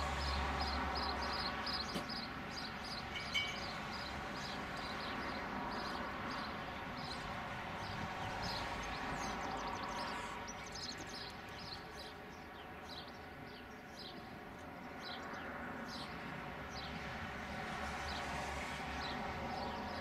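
A narrowboat's diesel engine running steadily, with birds chirping over it.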